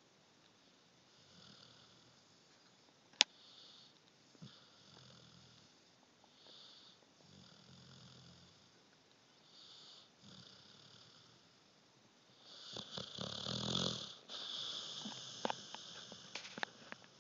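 A sleeping puppy snoring softly, one raspy breath about every one and a half to two seconds. There is a sharp click about three seconds in, and the snoring grows louder in the last five seconds, with a few more sharp clicks.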